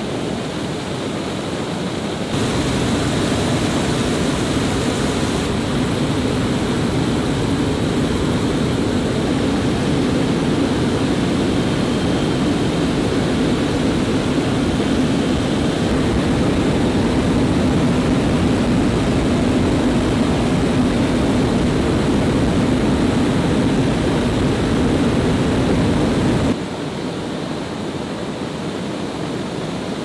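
Steady drone of a turboprop transport aircraft's engines and rushing air, heard from inside the cabin. It steps up in loudness about two seconds in and drops back abruptly a few seconds before the end.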